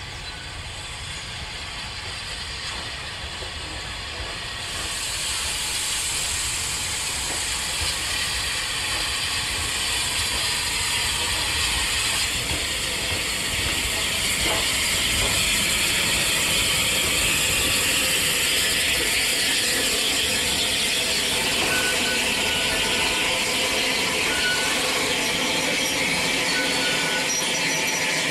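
An unrebuilt Bulleid light Pacific steam locomotive draws near with a steady hiss of steam that gets suddenly louder about five seconds in. It passes and its train of goods wagons rolls by, the rumble of the wheels on the rails going on to the end.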